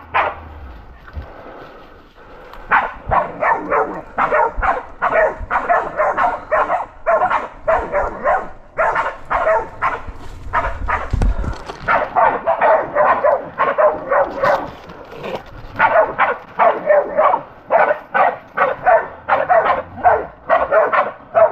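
Pig-hunting bay dogs barking in quick, steady succession, about three barks a second, holding a wild boar at bay. One bark comes right at the start, then a quieter couple of seconds before the barking sets in and keeps going.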